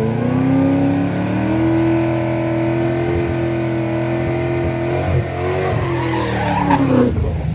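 Whipple-supercharged Ford Mustang V8 brought up to high revs and held there with tires squealing, as in a burnout to heat the tires; the revs drop away about seven seconds in.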